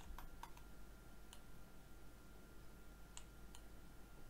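Faint, scattered computer mouse clicks, several in the first second and a couple more a little past three seconds in, over quiet room tone.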